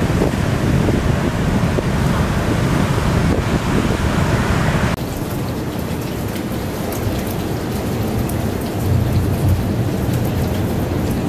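Waves breaking on a beach with wind on the microphone, then an abrupt change about five seconds in to steady rain, with a low rumble of thunder about a second before the end.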